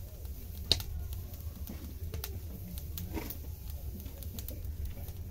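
Wood fire of sticks and twigs crackling inside a sunken bread-oven pit, with one sharp pop about a second in and scattered fainter clicks over a low steady rumble.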